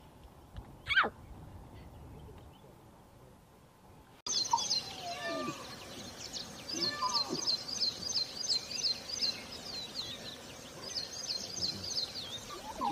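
Lion cubs calling: a single call sliding down in pitch about a second in, then after an abrupt change about four seconds in, short repeated mewing calls. A bird's repeated high trill runs behind the later calls.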